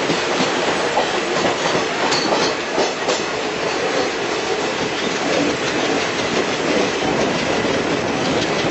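Train running along the track, heard from on board: a steady rolling and rushing noise with the wheels clattering over rail joints.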